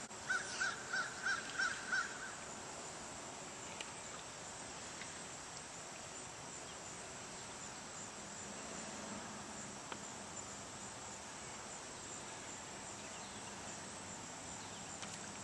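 Insects buzzing steadily at a high pitch. A bird calls in a quick series of about six short notes in the first two seconds.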